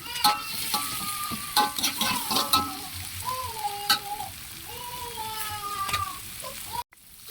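Long beans being stir-fried in a pan: steady sizzling with sharp clacks and scrapes of the spatula against the pan. The sound cuts out briefly near the end.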